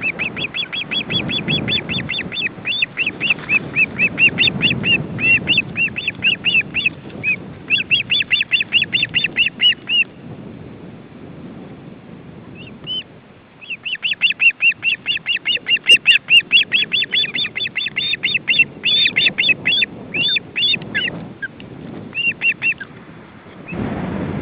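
Ospreys giving rapid strings of short, whistled chirps, about five a second, in two long bouts with a pause of a few seconds between. A low wind rumble on the microphone sits under them.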